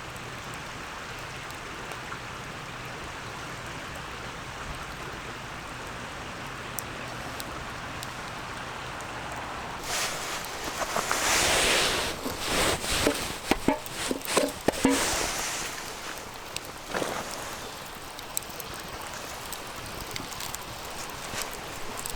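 Steady rushing of a small stream. About ten seconds in, a louder stretch of hissing and crackling with many sharp clicks lasts around six seconds, then the stream alone again.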